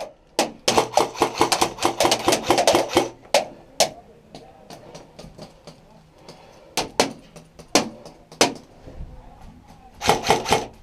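Airsoft guns shooting: a rapid burst of sharp cracks, then scattered single shots, then another quick burst near the end.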